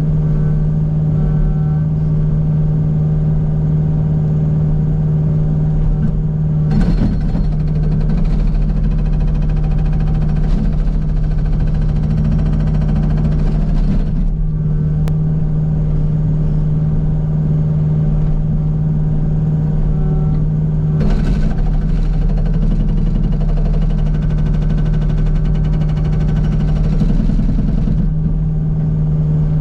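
Kubota U55 mini excavator's diesel engine running steadily. Twice, for about seven seconds each, the Agrotk hydraulic hammer breaker pounds rock in rapid blows, starting about 7 and about 21 seconds in.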